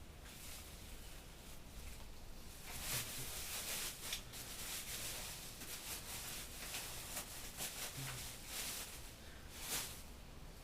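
Bubble wrap being unwrapped by hand, rustling and crinkling with many sharp crackles, starting about three seconds in.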